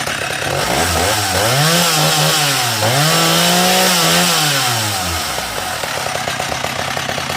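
Stihl 045 two-stroke chainsaw, fitted with a 36-inch bar and rapid-cut rip chain, idling, then revved up twice in quick succession before dropping back to a steady idle.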